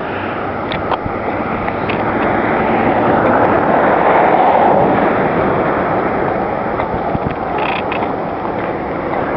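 A road vehicle passing by: a rushing tyre-and-engine noise that swells to its loudest about halfway through, then fades.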